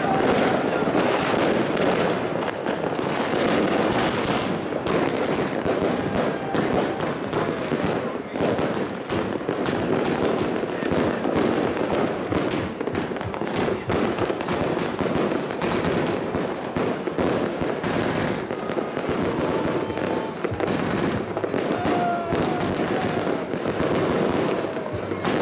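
Evolution Fireworks 'Bunker Blaster', a 100-shot compound fireworks cake, firing continuously: a rapid, unbroken stream of shots and bursting stars.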